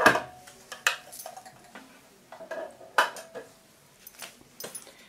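Sharp clicks and clinks from handling at a sewing machine while it is being set up to sew. The loudest click comes right at the start, with others about a second in and about three seconds in, each ringing briefly.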